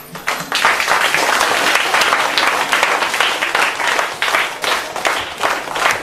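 An audience of children applauding, the clapping swelling quickly about half a second in and thinning a little toward the end.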